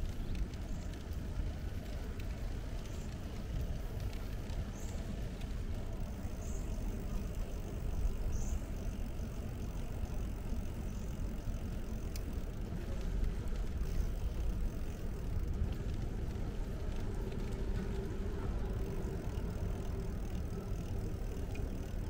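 Steady low rumble of wind on the microphone and tyre noise from a bicycle riding along a paved path.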